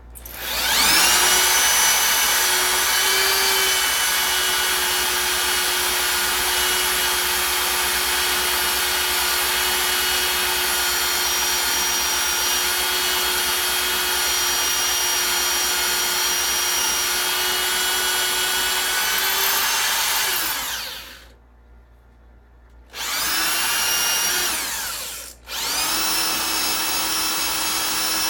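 Electric drill drilling out a factory lower ball joint rivet: the motor runs at a steady pitch for about twenty seconds, then winds down. After a short pause it starts again briefly, stops for a moment, and runs on.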